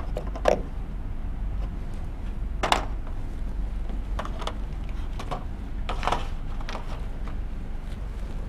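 Steady low background hum with a handful of short taps and scrapes, the sharpest about half a second in and just before three seconds in.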